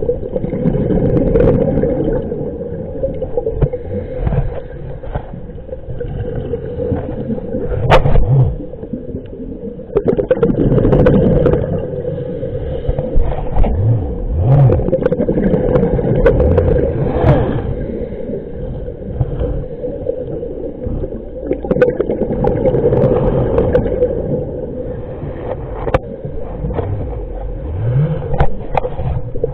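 Muffled underwater rumble with a steady hum, broken by scattered knocks and scrapes. This is the sound picked up by a submerged camera in its waterproof housing.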